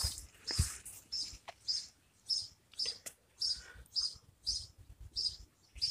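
A small bird chirping over and over, a short high chirp about twice a second, with a low thump near the start.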